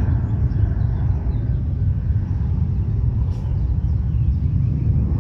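A steady, loud low rumble with no clear pitch and no change in level.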